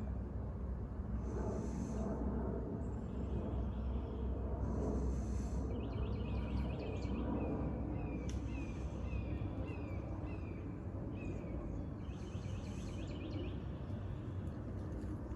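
Creek water flowing steadily, with a red-shouldered hawk calling over it in several series of short, down-slurred notes. Higher, scratchier bird sounds come in between.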